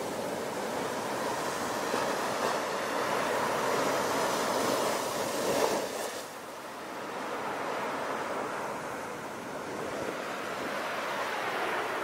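Ocean surf over a steady bed of brown noise. A wave swells and breaks about five and a half seconds in, falls away, and the next swell builds.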